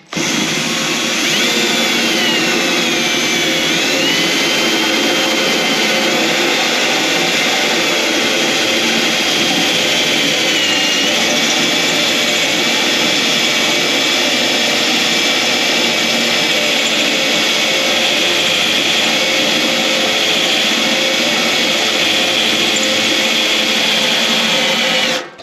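Drill running a spot weld cutter into the sheet steel of a tractor battery box, cutting out a factory spot weld: a steady, loud motor whine that dips in pitch a few times as the cutter loads up, stopping abruptly near the end.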